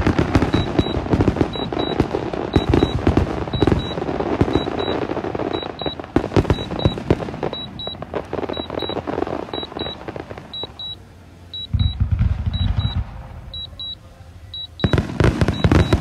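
Fireworks going off in rapid succession, a dense run of cracks and bangs, with a deep boom about twelve seconds in and another loud burst of bangs near the end. A short high beep repeats about twice a second throughout.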